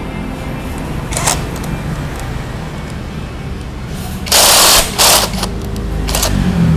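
Cordless impact wrench loosening the triple-clamp bolts of a motorcycle's front fork, in three short hammering bursts: a brief one about a second in and two louder ones near the end.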